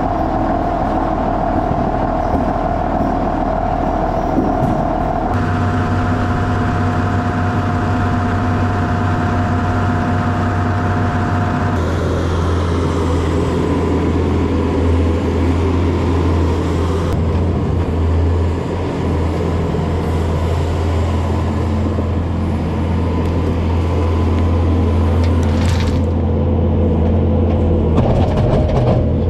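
Farm tractor engine running steadily while hauling a dump wagon. The engine note shifts abruptly a few times, between a higher whine and a deeper, heavier drone.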